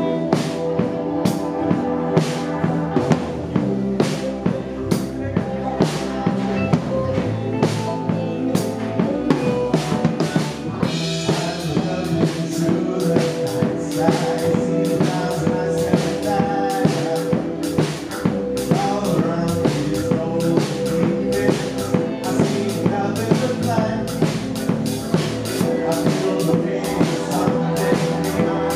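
Live funk band playing: a drum kit keeps a steady beat under electric guitar and keyboard, with a man singing at times.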